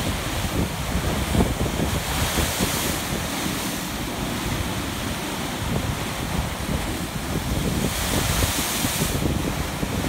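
Atlantic surf breaking against a rocky shore and washing off the rock ledges, with wind buffeting the microphone. The hiss of the surf grows louder twice, a couple of seconds in and again near the end.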